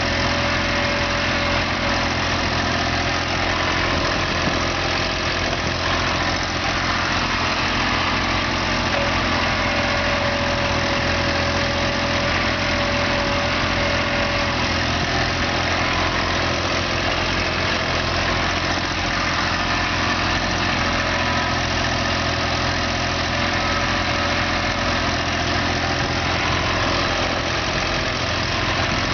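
Engine of a small excavator running steadily at an even speed.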